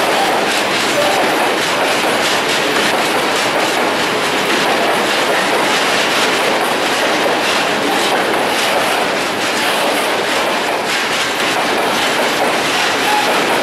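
Long freight train of open coal wagons rolling past at close range, loud and steady, its wheels clattering over the rail joints in a continuous run of clicks.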